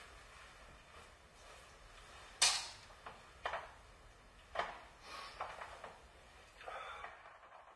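A few separate knocks and clunks, like things being handled or moved about; the loudest is about two and a half seconds in.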